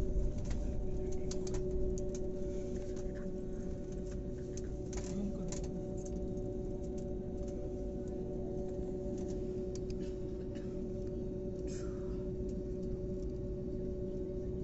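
Airliner cabin noise before take-off: a steady low rumble with two constant hum tones from the engines and air systems. A few light clicks and a brief falling squeak near twelve seconds.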